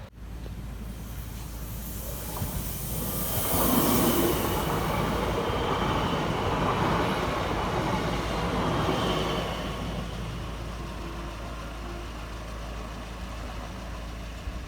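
A train passing on the line: the rumble of wheels on rail builds over the first few seconds, is loudest from about four to nine seconds in with a brief high hiss near the start of that stretch, then fades to a lower steady rumble.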